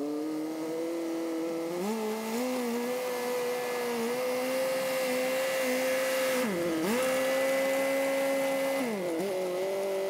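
Small crawler bulldozer's engine running as it pushes a blade-load of dirt. The engine pitch rises about two seconds in, dips sharply once and recovers about two-thirds of the way through, then drops again near the end.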